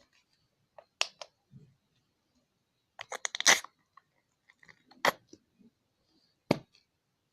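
Plastic glitter glue bottles being handled: separate sharp clicks and knocks, with a short crackly cluster of handling noises about three seconds in.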